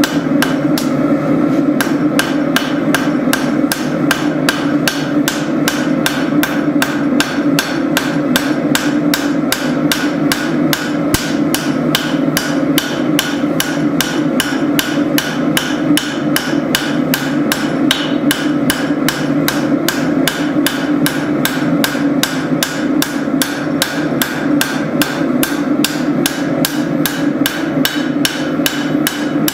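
Hammer blows on hot steel being forged into a tanto blade, falling evenly about three times a second without a break. A steady hum runs underneath.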